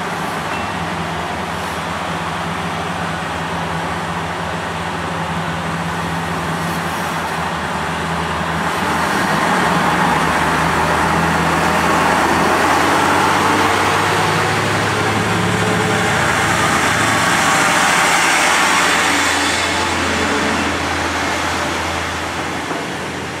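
KiHa 150 diesel railcar pulling away from the platform. Its engine runs steadily at first, then picks up as the car moves off. Engine and wheel noise grow loudest as it passes close by, roughly from 10 to 20 seconds in, then fade as it leaves.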